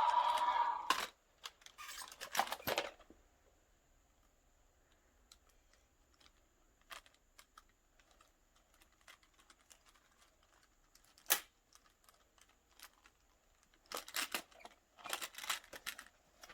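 Plastic dinosaur toy being handled and worked: scattered sharp clicks and rattles of hard plastic parts, in small clusters with quiet gaps and one louder click about two-thirds of the way through.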